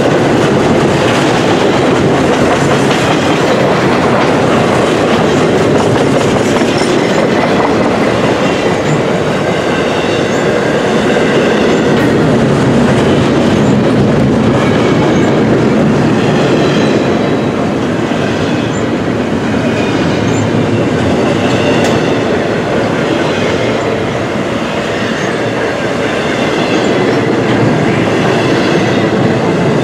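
Double-stack intermodal freight cars rolling past at speed: a loud, steady rumble of steel wheels on the rails, easing off slightly past the middle.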